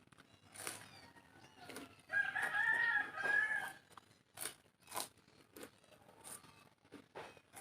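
A rooster crows once, loud and wavering, for nearly two seconds starting about two seconds in. Around it come short, sharp crunches and smacks of someone chewing.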